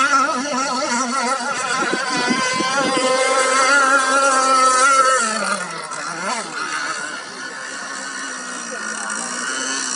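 Model shrimp boat's motor running with a steady whine whose pitch wavers, then falls and gets quieter about halfway through as it slows.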